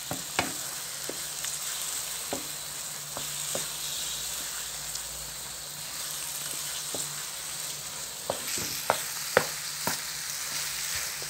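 Soaked semolina sizzling in a pan of hot sugar syrup and oil while a wooden spatula stirs it steadily, with scattered knocks and scrapes of the spatula against the pan. A few louder knocks come near the end.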